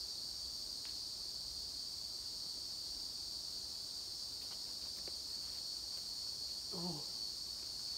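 Steady chorus of insects, a continuous high buzz. A person's voice cuts in briefly about seven seconds in.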